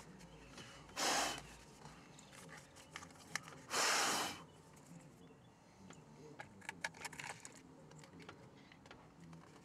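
Two short, loud hissing huffs of breath about three seconds apart, among light plastic clicks and taps as a steering wheel is handled and fitted back onto its column.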